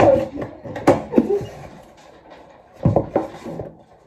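Cardboard shipping box being cut open and unpacked by hand: rustling and scraping of cardboard, a sharp snap about a second in, and a few heavier knocks about three seconds in as a smaller inner box is lifted out.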